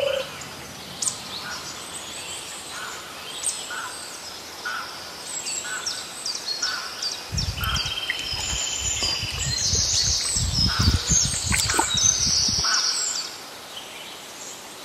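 Small birds chirping and calling in a rural field, with a short call repeated about twice a second and a trill about halfway through. A low rumbling noise runs under the birds through the middle part and stops about three-quarters of the way in.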